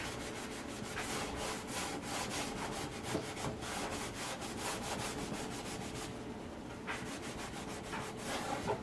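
Steel-wool soap pad (Brillo pad) scrubbing stains off a toaster oven in quick, even back-and-forth strokes, with a short let-up about six seconds in before the scrubbing resumes.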